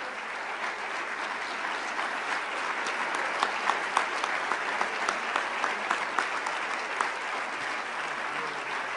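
Audience applauding: many hands clapping steadily, swelling a little in the middle.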